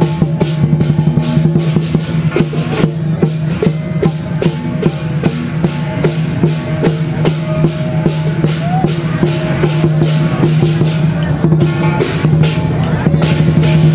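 Chinese lion dance percussion: a large drum beaten with crashing cymbals and gong, a fast, steady beat of about four strikes a second.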